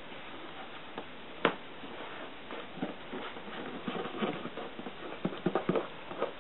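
Fingers pressing and smoothing tape along the edge of a corrugated plastic (Corex) hull: a sharp tap about one and a half seconds in, then a run of small crackles and rustles in the second half.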